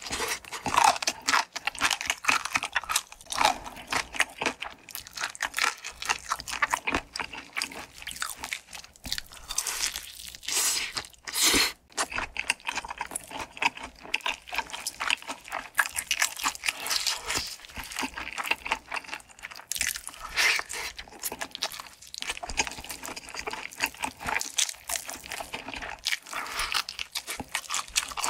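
Close-miked crunching and chewing of crispy fried chicken: repeated crisp bites into the coating with wet chewing between them, some bites much louder than the rest.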